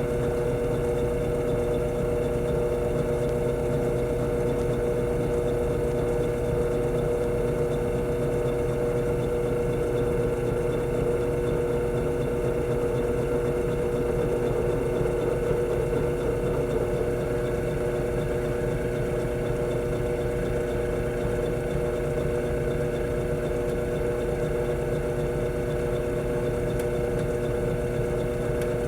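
Electric hand drill running at a steady, constant speed, drilling a small hole through a belt fitting.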